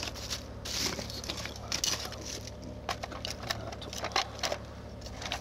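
Lumps of charcoal being picked out of a plastic bag with metal tongs and set into aluminium foil trays: plastic rustling with a string of irregular light clicks and clinks.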